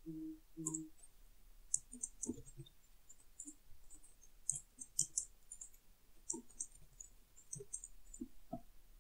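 Computer keyboard typing: light key clicks in irregular short runs.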